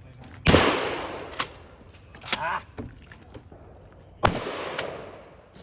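Two loud gunshots about four seconds apart, each dying away over a second or so, with a few lighter knocks and clacks in between.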